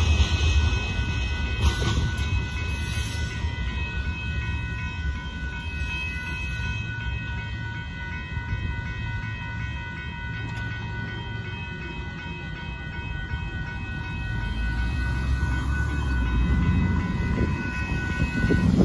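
Railroad crossing warning bell ringing steadily over the fading low rumble of the departing freight train. The bell stops near the end as the gates go up, and the rumble swells again as road traffic starts across the crossing.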